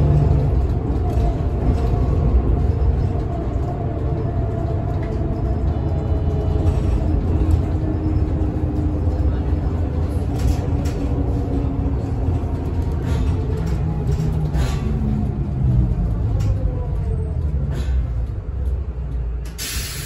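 Cabin noise of a Mercedes-Benz Citaro O 530 city bus under way: the diesel engine runs over steady road rumble, its pitch rising and falling as the bus speeds up and eases off. Scattered knocks and rattles come through in the second half.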